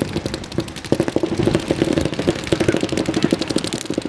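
Many paintball markers firing together: a rapid, irregular clatter of overlapping pops, heard from about 50 yards away.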